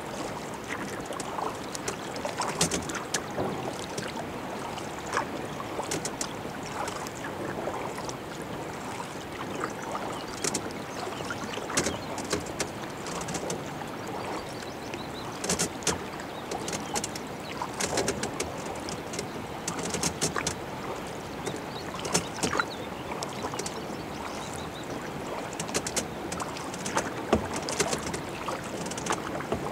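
Kayak paddle strokes in calm water: the blade splashes in every second or two over a steady trickle of moving water.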